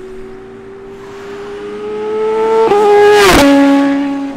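BMW S1000RR inline-four with an Austin Racing exhaust holding a steady high-pitched engine note that grows louder as it approaches. It passes at speed about three seconds in, the pitch dropping sharply as it goes by, then carries on at a lower note as it moves away.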